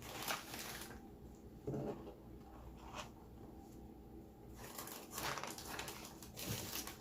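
Paper food wrapping crinkling and rustling in bursts as a fast-food meal is handled, once near the start and again over the last two seconds. A soft thump comes just before two seconds in and a small click at about three seconds.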